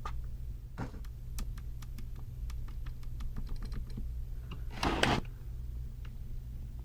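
Light, irregular clicking and tapping of small parts and tools being handled while wiring a small circuit, with a short louder scraping rustle about five seconds in, over a low steady hum.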